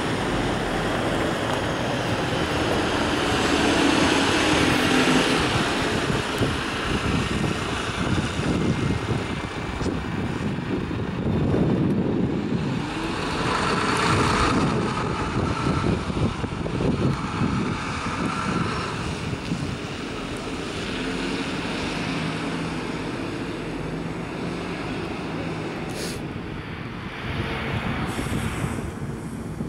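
A large vehicle passing, a continuous mix of motor and rolling noise with a faint whine through the middle stretch.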